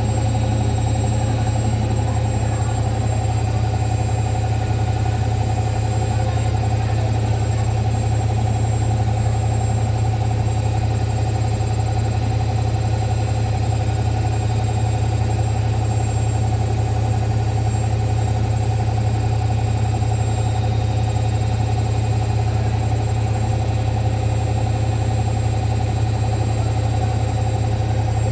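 Hoover washing machine on its spin cycle, the drum spinning at a steady speed with a loud, even motor hum.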